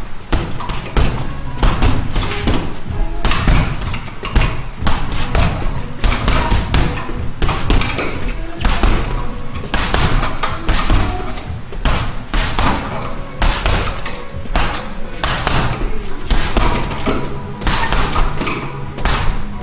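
Boxing gloves punching a heavy punching bag, a fast, uneven run of thuds in flurries, over background music.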